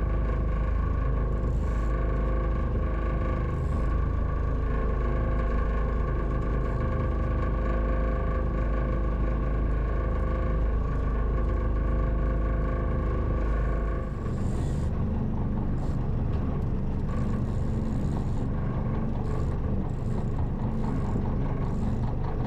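Boat engine running steadily, a low rumble with a fixed hum over it; its tone shifts about two-thirds of the way through.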